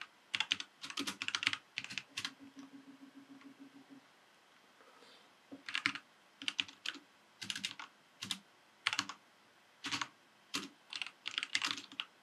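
Computer keyboard typing in quick bursts of keystrokes, with a pause of about a second and a half near the middle.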